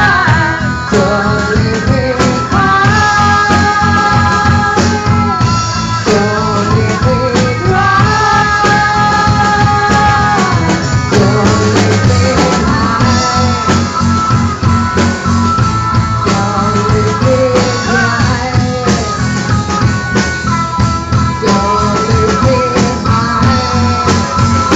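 Rock music in an instrumental stretch: a held, sliding melodic line over guitar and a steady drum beat.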